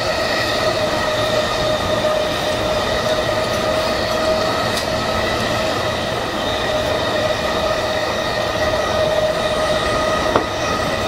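JR East E233-1000 series electric train running at steady speed, heard from the leading car: constant rumble of wheels on rail with a steady whine of several held tones. One sharp click about ten seconds in.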